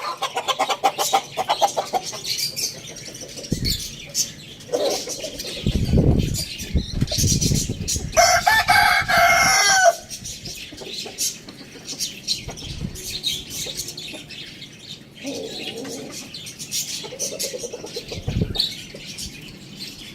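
Chickens: a rooster crows once, about eight seconds in, a single call lasting nearly two seconds, among scattered shorter clucks from the flock. Low rustling thumps come just before the crow.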